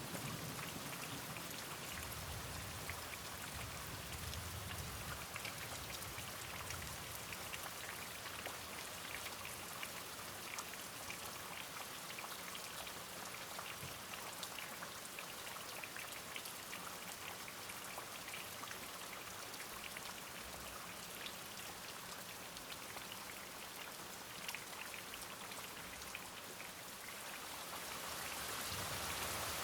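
Steady rain, with many small drops ticking on a surface, growing louder near the end.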